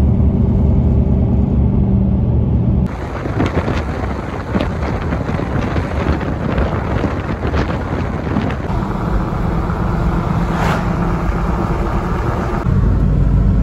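Steady in-cab drone of a truck driving at highway speed, a low engine hum under road noise. About three seconds in it changes abruptly to a louder, wider rushing of wind and road noise.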